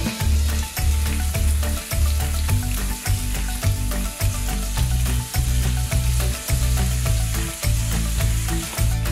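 Perch fillets sizzling on a hot cast-iron grill pan over a gas flame, a steady frying hiss, with background music.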